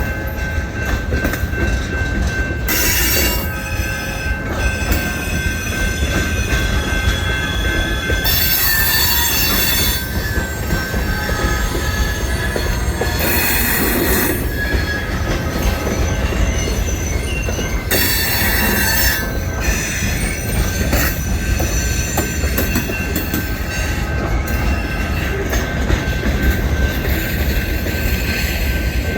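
Freight train on the DeQueen and Eastern rolling by with a steady low rumble and a continuous wheel squeal, with louder high-pitched squeals flaring up briefly four times, a few seconds apart.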